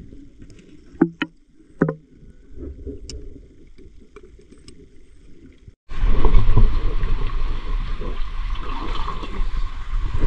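Muffled underwater sound beside a sunken boat engine, with three sharp knocks between one and two seconds in. About six seconds in it cuts abruptly to loud wind rumble on an outdoor microphone, mixed with water and movement noise as a man climbs out of the flooded hull's hatch.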